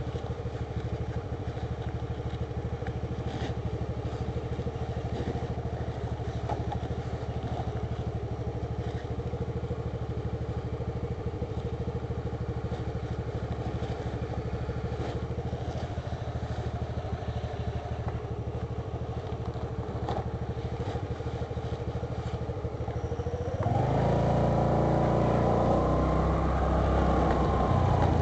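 Motor scooter engine idling steadily, then revving up louder with rising pitch as the scooter pulls away, about four-fifths of the way through.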